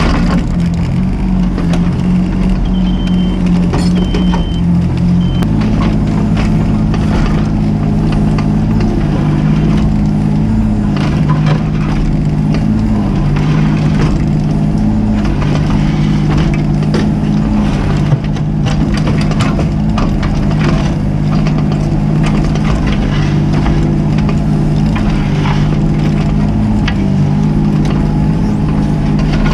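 Mini excavator's diesel engine running under shifting hydraulic load, its pitch stepping up and down, with repeated cracking and crunching of material being dug or broken. A few short high beeps sound about three seconds in.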